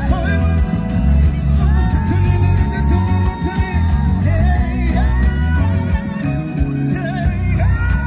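A male vocalist singing live into a handheld microphone over loud amplified music with heavy bass. He holds long notes of a second or more, sliding in pitch as each one ends.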